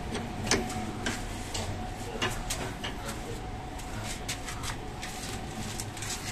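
Irregular sharp clicks and light taps, about two or three a second, over a steady low hum and a faint steady tone.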